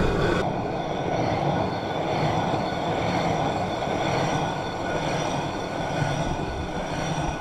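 Hand-turned stone quern (chakki), an upper stone turning on a lower stone, steadily grinding pearl millet into flour.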